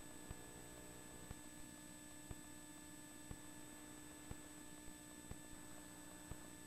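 Near silence: a faint electrical hum from the recording chain, with a faint tick about once a second.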